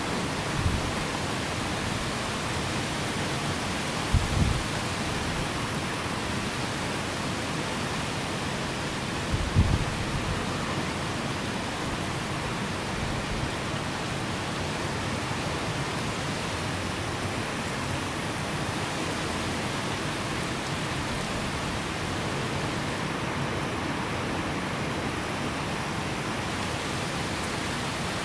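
Heavy rain falling steadily, an even hiss. A few brief low bumps come in the first ten seconds.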